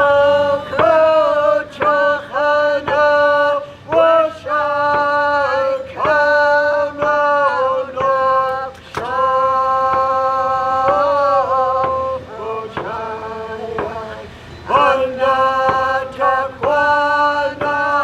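A single voice singing a chant-like song in long held notes, phrase after phrase with short breaks, one note held for about three seconds near the middle.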